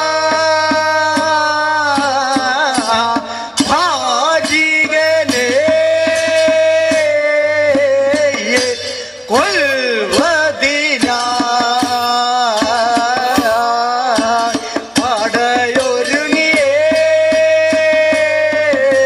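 Padayani ritual song: voices singing a drawn-out, gliding melody over a steady stream of drum strokes.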